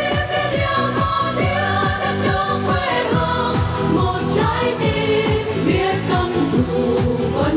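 A group of women singing a Vietnamese pop-style song together into microphones, over amplified backing music with a steady drum beat.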